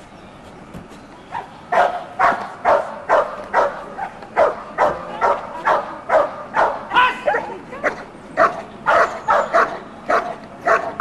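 A dog barking rapidly and steadily, about two barks a second, starting about two seconds in.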